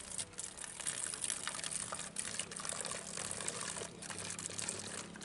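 Palm toddy poured from a metal mug into the narrow neck of a plastic bottle: a steady splashing trickle as the bottle fills.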